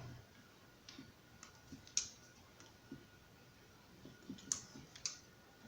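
Faint, scattered metallic clicks of pliers being worked, crimping a wire connector onto a fan lead. The sharpest clicks come about two seconds in and again near four and a half seconds.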